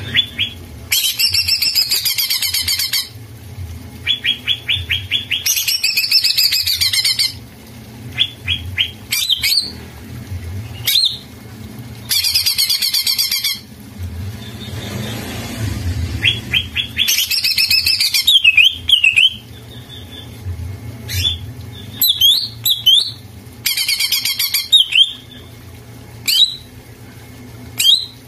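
Caged green leafbird (cucak ijo) singing vigorously: loud bursts of fast, dense chattering phrases, each a second or two long, repeated about every few seconds. Short chirps and whistled notes come between the bursts.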